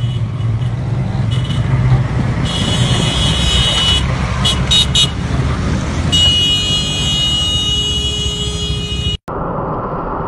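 Vehicle engine rumbling while a vehicle horn sounds: one blast about two and a half seconds in, two short toots around four and a half seconds, then a long held blast from about six seconds in. Near the end the sound cuts abruptly to steady road noise heard from inside a moving car.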